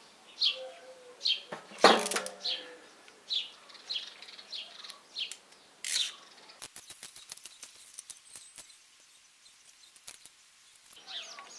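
A ratchet wrench clicking rapidly for about four seconds in the second half as it works an injector nut on a Perkins diesel engine, with a single sharp metal clank near two seconds in. A small bird chirps repeatedly, about once a second, through the first half.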